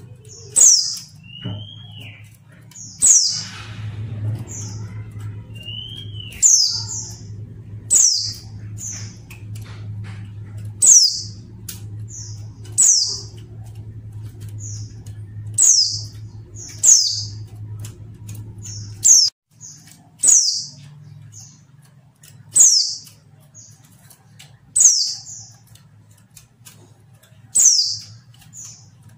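Female white-eye (pleci) calling: short, high, sharp notes that fall in pitch, each followed by one or two softer notes, repeated every second or two. These are the female calls used to prompt male white-eyes into calling back. A low hum in the background stops about two-thirds of the way through.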